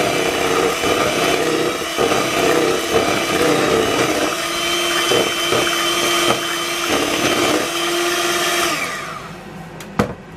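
Electric hand mixer running steadily, its beaters whirring through thin cake batter in a plastic bowl; it is switched off with a falling wind-down a little before the end, followed by a sharp knock.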